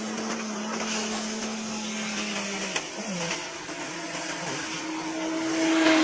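Heavy tipper truck's engine running steadily with a whine while its raised bed tips a load of gravel. The tone dips about halfway through and comes back higher and louder near the end.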